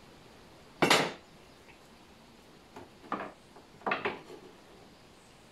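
Metal telescopic drawer runner being taken apart and handled: a loud metallic sliding clack about a second in as its outer part is released, then a few lighter metal clicks and knocks as the runner is set against the cabinet side.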